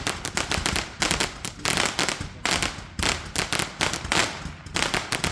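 Large 'Maschinegewehr' firecracker string going off: a rapid, machine-gun-like volley of loud bangs in dense bursts, with short lulls between them.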